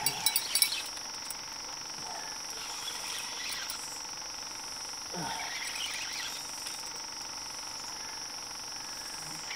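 Steady high-pitched chorus of night insects, with a few sharp clicks in the first second as a fishing rod is handled.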